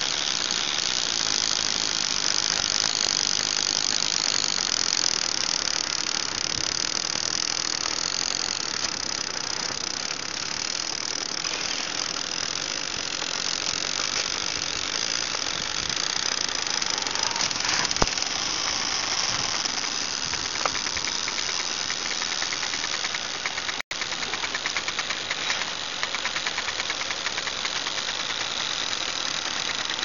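Sea ice floes grinding and scraping against each other, a continuous harsh grinding with a few sharp cracks, turning into a fast stuttering rattle in the last third.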